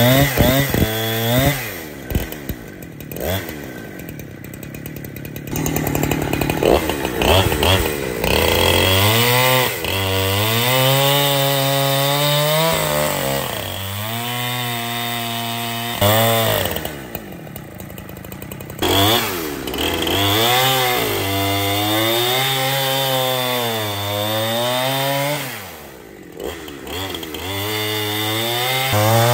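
Husqvarna 365 two-stroke 65cc chainsaw running and revving, its pitch rising and falling again and again, with quieter low-revving stretches early on and about 26 seconds in.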